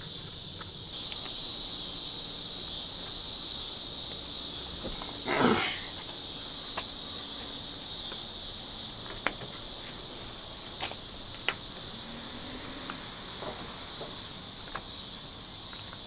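Steady high-pitched insect chorus droning, with a short louder noise about five and a half seconds in and a few sharp clicks later on.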